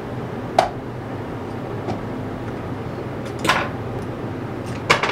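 Metal jig-head mould being opened and handled after a lead pour: a sharp metallic click a little after the start, a longer clatter about three and a half seconds in, and a quick double click near the end, over a steady background hum.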